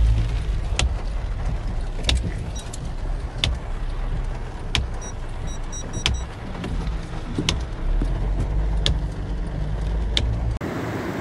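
Car interior noise while driving on a wet road: a steady low engine and tyre rumble, with a sharp click repeating about every second and a half.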